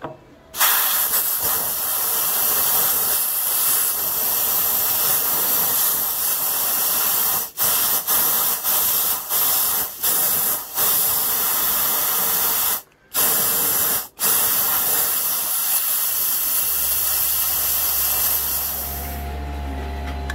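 Compressed air blown into a motorcycle front brake caliper to force out a stuck piston: a loud steady hiss, cut off briefly several times as the air is stopped and started again.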